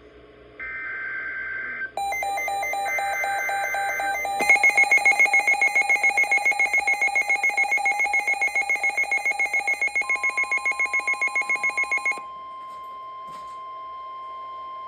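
NOAA Weather Radio SAME header data bursts: two short bursts of digital data noise in the first few seconds, the coded start of a new warning. About two seconds in, a weather radio receiver's electronic alarm starts, then beeps loudly several times a second for about eight seconds. The steady 1050 Hz weather radio warning alarm tone comes in under the beeping and carries on alone after the beeping stops.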